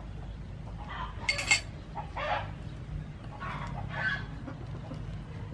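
Chickens clucking in short separate calls every second or so, with a brief, sharper and louder sound about one and a half seconds in, over a low steady rumble.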